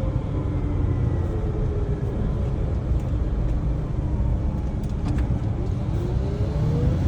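Wheel loader's diesel engine running steadily with a low rumble, heard from inside the cab, with a whine rising in pitch over the last second or so.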